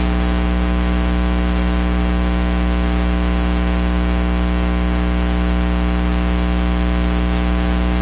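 Steady electrical hum and buzz, a low drone with many evenly spaced overtones under a layer of hiss, unchanging throughout.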